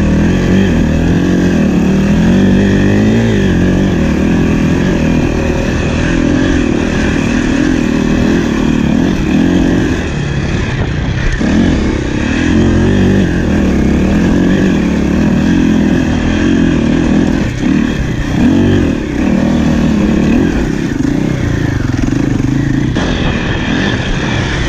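KTM enduro dirt bike engine running hard under the throttle, its pitch rising and falling continuously as the bike ploughs through deep snow.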